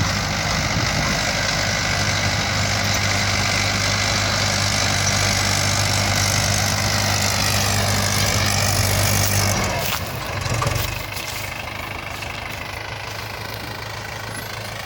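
Farm tractor's diesel engine running steadily as the tractor drives along a dusty field track. About ten seconds in, the engine note drops and it runs on more quietly.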